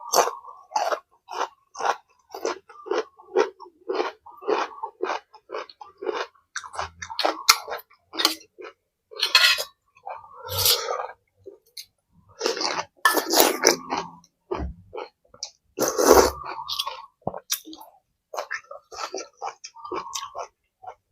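Close-miked chewing of food, wet mouth clicks and crunching in an irregular stream, with a few longer, louder bursts around a third of the way in, past the middle and about three quarters through.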